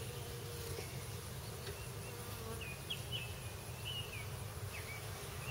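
Honeybees buzzing around an open hive in a steady low hum.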